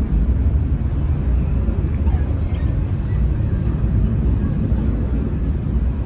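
Jet airliner's engines rumbling low and steady as it climbs away after takeoff, slowly fading.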